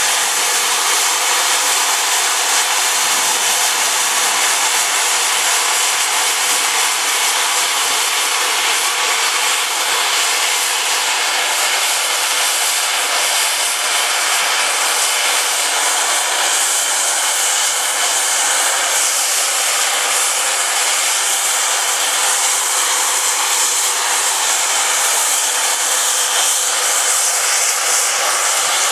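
LSWR Class M7 0-4-4T steam tank locomotive standing with steam escaping in a loud, steady hiss that does not change.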